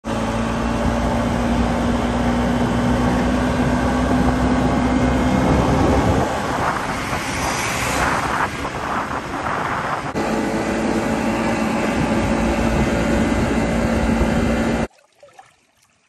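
Riding a small motor scooter through city traffic: wind rushing on the microphone and road noise, with the scooter's steady engine hum. A bus passes close alongside about seven to ten seconds in. The sound cuts off suddenly near the end.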